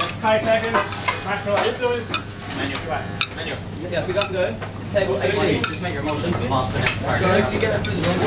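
Restaurant kitchen in service: pans sizzling, with spoons and pans clinking and scraping over a steady low hum.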